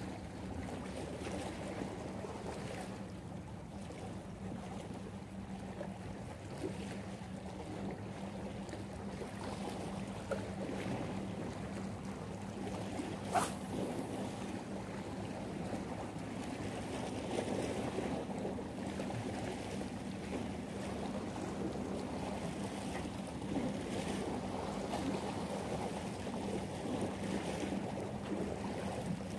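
Small waves lapping against breakwater rocks with light wind, under a steady low hum, and a single sharp click about 13 seconds in.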